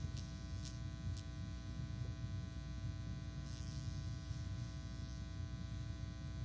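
Steady electrical buzz and mains hum from the sound system, with a few faint clicks in the first second or so.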